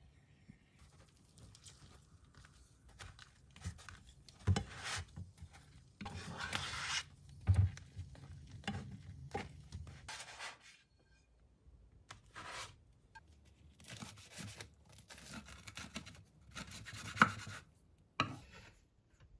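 Cooking a quesadilla: on and off scraping and rubbing of a spatula and chopsticks against a frying pan and the tortilla, with a few sharp utensil clicks, then a knife cutting through the toasted tortilla on a wooden board near the end.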